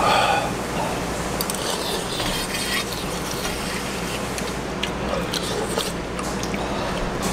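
Two people eating soup with metal spoons: slurping and chewing, with small clinks of spoons against stainless steel bowls over a steady low room hum.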